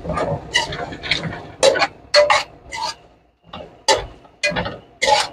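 Metal spoon scraping and stirring pieces of beef liver with spices around a steel pot, in short strokes about two a second with a brief pause near the middle.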